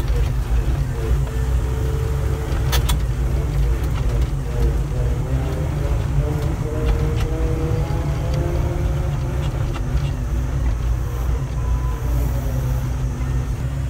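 SDLG excavator's diesel engine running steadily under travel, heard from inside the cab as a deep, constant low rumble with a wavering drone above it.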